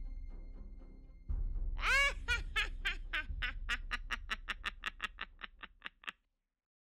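Witch's cackle sound effect: a high drawn-out cry, then a fast run of short 'ha-ha-ha' pulses, about four or five a second, that fades out. A low drum rumble from the music runs underneath.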